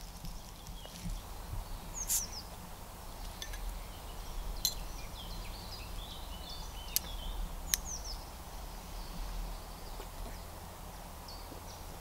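Bottle opener of a Victorinox Camper Swiss Army knife prying the crown cap off a glass beer bottle: a few sharp metallic clicks, about four in all. Small birds chirp in the background over a steady low hum.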